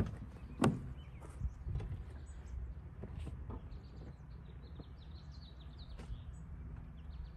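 A pickup truck's driver door clicks open, followed by a louder thump and a few smaller knocks as someone climbs into the cab. Faint bird chirps follow over a low outdoor rumble.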